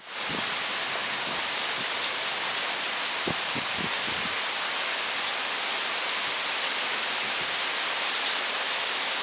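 Rain falling steadily: an even hiss of rain on surfaces with scattered individual drop taps.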